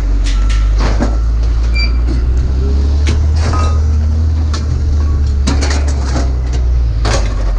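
Vehicle engine and road rumble, low and steady, with scattered knocks and rattles as it drives slowly through a scrap yard.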